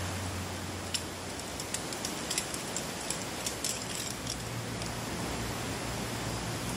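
Steady outdoor hiss with a low hum underneath, and a scattered run of light clicks and taps over the first few seconds as camping gear is handled at a camp table.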